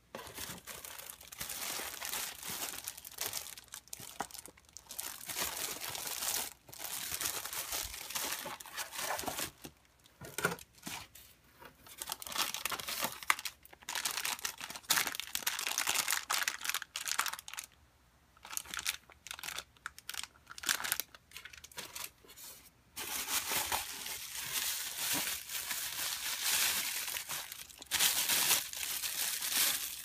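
Plastic bags and bubble wrap crinkling and rustling in irregular spells with short pauses between, as wrapped parts are handled and unwrapped.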